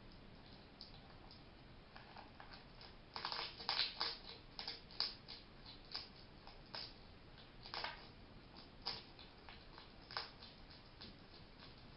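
A hedgehog making a run of short sneezes: a quick cluster about three seconds in, then single ones about once a second until near the end. The owner has since come to take this sound as a sign that the hedgehog is happy rather than ill.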